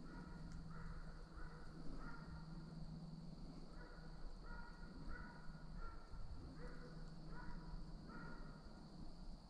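A deer hound baying faintly, a string of short bawls repeating less than a second apart: the dog has struck a deer's track and is opening on it.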